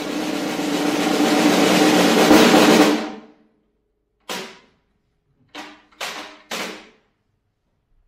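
Snare drum roll swelling steadily louder, then stopping abruptly about three seconds in. After a pause come four single sharp strikes, the last three close together.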